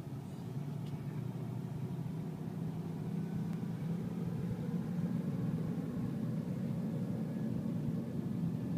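Steady low engine and road noise heard inside a moving car's cabin, growing a little louder over the first few seconds.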